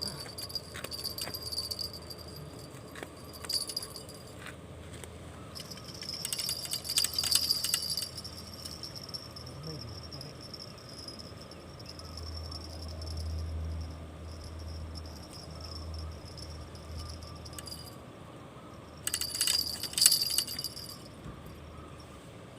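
Small bell jingling in short bursts, about six seconds in and again near the end, over a steady high insect drone.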